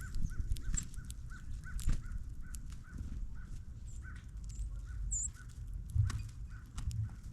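Backyard birds calling: a long, even series of short notes, about four to five a second, with a few high chirps above it and some sharp clicks.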